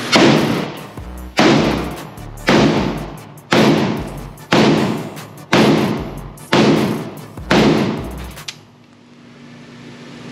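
Eight shots from an IWI Galil ACE pistol in 7.62x51mm NATO, fired at a steady pace of about one a second, each echoing and dying away inside an indoor range; the firing stops about two seconds before the end.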